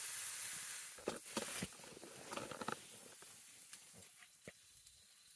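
Light taps, clicks and knocks of hands and a fork placing food onto a wooden plank, with the sizzle of a hot pan fading away in the first second or so.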